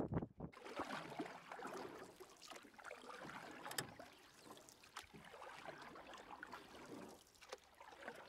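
Water washing and splashing along the hull of a small sailboat under sail, with a couple of sharper splashes near the middle. A rush of wind on the microphone cuts off about half a second in.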